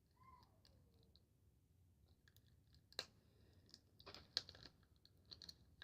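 Faint plastic clicks and crinkles of a toy's packaging being worked at to force it open, with one sharper click about three seconds in and a cluster of small clicks near the end.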